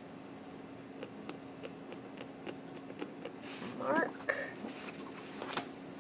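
Light ticks and taps as a clear plastic gridded ruler is shifted over fabric on a cutting mat, then fabric rustling as the cloth is gathered up, with a sharp click near the end. A short vocal sound comes about four seconds in, over a steady low hum.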